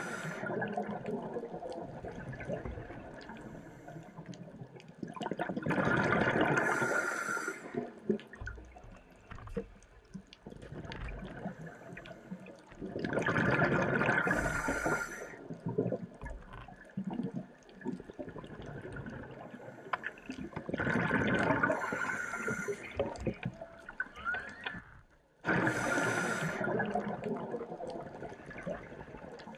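A scuba diver breathing underwater through a regulator: four loud surges of breath and bubbles, about seven seconds apart, with a fainter crackle in between.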